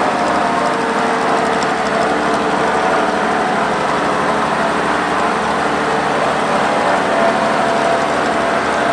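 Oliver 430 combine running steadily, a continuous engine and machinery hum with several steady tones.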